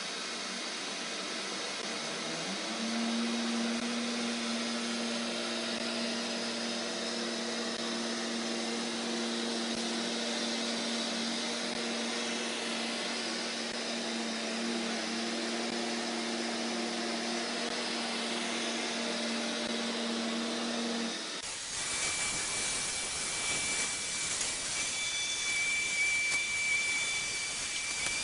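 Neato XV-12 robot vacuum starting up: its motor spins up about two seconds in and then runs with a steady hum over a hiss. Near the end the sound changes abruptly to a harsher hiss with a thin, high steady whine.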